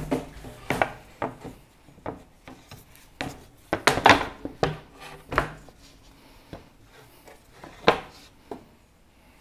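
Irregular wooden knocks, clacks and short scrapes as plywood pieces are handled and repositioned, with a cluster of louder knocks about four seconds in and another near eight seconds.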